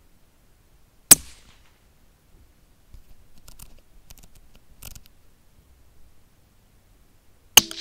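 Two rifle shots at rabbits, one about a second in and another near the end, each a single sharp crack with a short tail. Faint knocks and rustles come in between.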